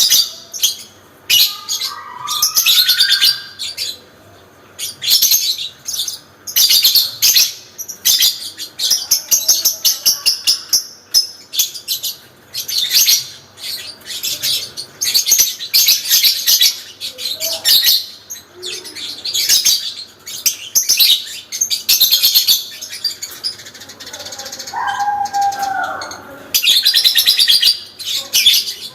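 Parblue lovebird singing its long chattering 'ngekek' song: fast, high-pitched chatter in runs of several seconds broken by short pauses. A few lower whistled notes come in near the start and again near the end.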